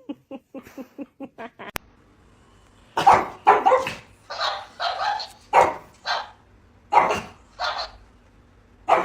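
A dog barking repeatedly, about ten barks over six seconds starting about three seconds in. Before them comes a quick run of short soft sounds.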